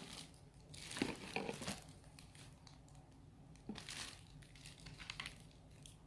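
Packaging crinkling and rustling as a cordless mini chainsaw kit is unpacked, in two bursts about a second in and near four seconds in, with a few light clicks a little after five seconds.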